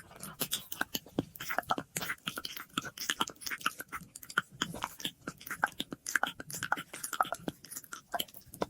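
ASMR mouth sounds: a fast, irregular run of wet clicks, pops and smacks from lips and tongue close to the microphone, with an echo effect on the audio.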